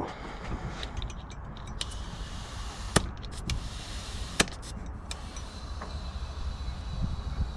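Air hissing steadily into a dirt bike's rear tyre as it is inflated to seat the beads, with two sharp snaps about three and four and a half seconds in: the tyre beads popping onto the rim.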